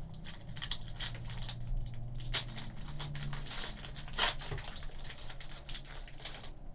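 A foil trading-card pack being torn open and its wrapper crinkled as the cards are pulled out, in a string of short papery crackles over a low steady hum.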